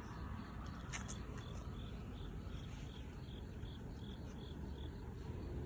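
Grass insects chirping at dusk: a regular run of short, high chirps about two or three a second, over a steady low rumble of outdoor background noise.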